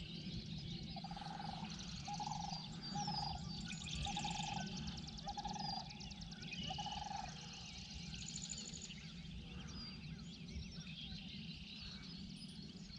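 Birds chirping and trilling outdoors near the water, with a short lower call repeated six times, about once a second, over the first seven seconds.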